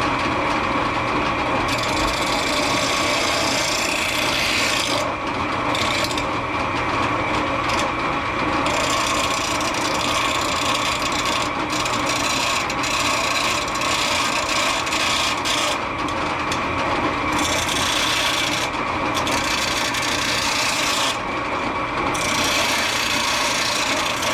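Handheld electric power tool running continuously under load against metal: a steady motor whine over a gritty hiss, whose upper part drops out and returns every second or two as the pressure changes.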